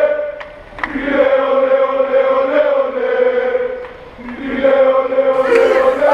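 A group of voices singing a slow chant in unison: long held notes, broken twice by short pauses between phrases. Near the end, louder crowd noise begins to come in.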